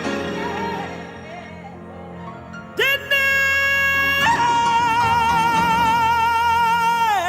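Gospel singing with a band: after a quieter stretch, a singer comes in about three seconds in with a long held note, then steps up to a higher note held with wide vibrato until near the end, over the steady band underneath.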